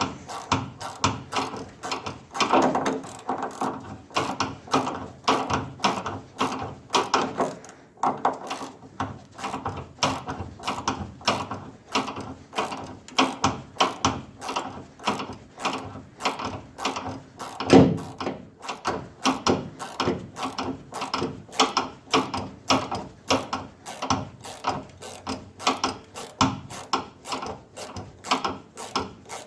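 Hand ratchet wrench clicking steadily, about three clicks a second, as it backs off the top shock-mount bolt.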